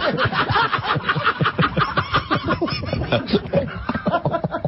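Several men laughing hard together, in fast repeated bursts.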